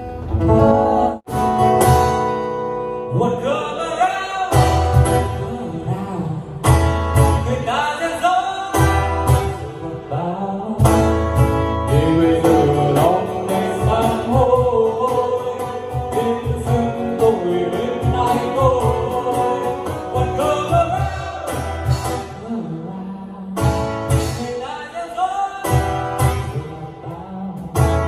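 A pop song with singing over guitar and a steady beat, played back loud through a P.audio PA speaker system as a demo. The music cuts out for an instant about a second in.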